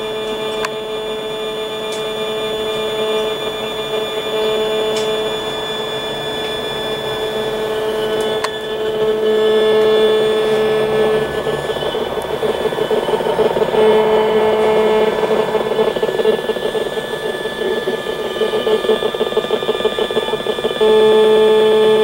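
EMFields Acoustimeter RF meter's speaker turning the microwave signals of a nearby cell tower into sound: a steady buzzing drone of several held tones with a fast fluttering chatter, swelling in stretches and stepping louder near the end.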